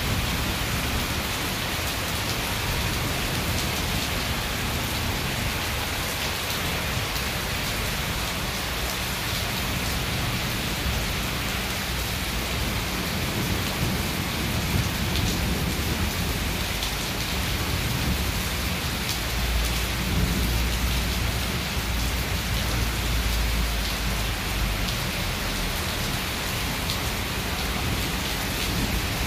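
Torrential monsoon rain pouring steadily onto a lawn and paving, a dense, even hiss. A low rumble swells in about twenty seconds in.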